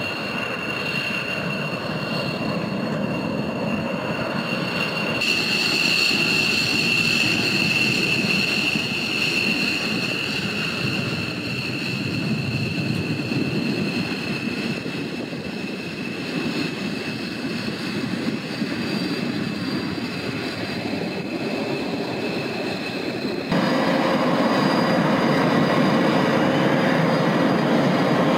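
Military jet engines on the runway: a C-17 cargo jet climbing out, then an F-15C's twin engines as it rolls along the runway, and for the last few seconds a louder two-seat F/A-18-type jet. A steady high whine over a broad rumble, changing suddenly about five seconds in and getting louder near the end.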